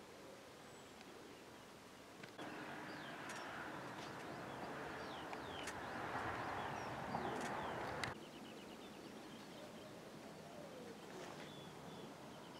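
Small birds chirping over quiet countryside ambience. For several seconds in the middle a louder steady noise comes in, then cuts off abruptly.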